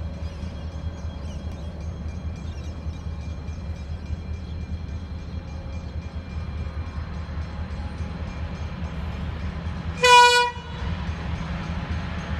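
CSR-class diesel freight locomotive approaching with a steady low rumble, then sounding its horn in one short blast about ten seconds in, the loudest sound.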